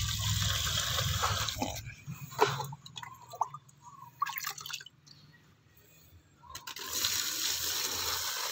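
Fertilizer solution (urea and complete fertilizer dissolved in water) poured from a plastic scoop onto dry leaves and soil at the base of a grapevine. One pour lasts about two seconds, a few faint knocks follow, and a second pour begins near the end.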